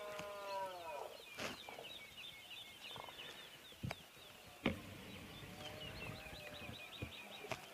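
Red deer stag roaring in the rut: a drawn-out call that rises and falls and ends about a second in, with fainter calls later. Small birds chirp in quick series in the second half, over scattered sharp clicks.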